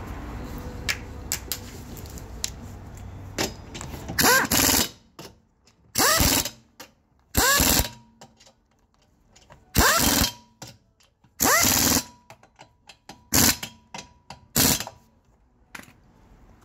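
An impact wrench driving a bolt in seven short bursts about 1.5 to 2 seconds apart. Each burst spins up with a rising whine. Lighter tool clicks fall between the bursts.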